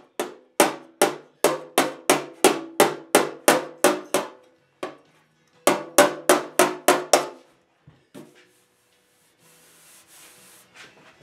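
Body hammer striking a 1963 Chevy C10's steel fender against a hand-held dolly, ringing with each blow: a run of about a dozen strikes at roughly three a second, then a short pause and about six more. The dolly is held under a low spot while the hammer knocks down the high spot around it. Near the end comes a soft rub of a hand feeling over the panel.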